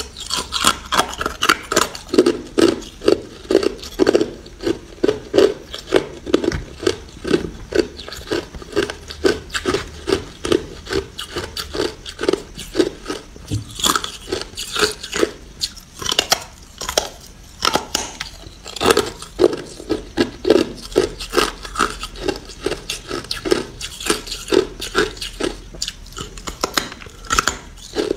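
A person biting and chewing hard ice close to the microphone: a steady run of sharp, loud crunches, about two to three a second, with a couple of short breaks past the middle.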